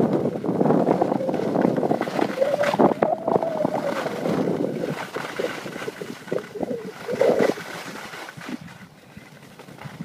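Skis scraping and hissing over packed snow during a downhill run, with wind buffeting the microphone. The scraping is strongest over the first half and dies down over the last few seconds.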